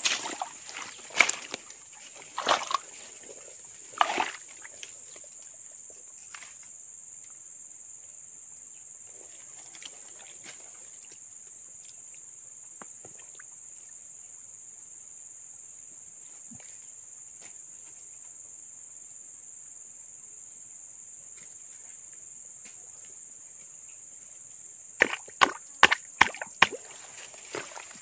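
Muddy water sloshing and splashing as hands work in a small flooded hole: a few splashes in the first four seconds and a quick flurry of them near the end. Under it, a steady high drone of insects.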